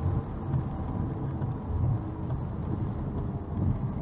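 Car driving at highway speed on a wet road, recorded from inside the cabin: a steady low rumble of road and engine noise that swells and eases a little.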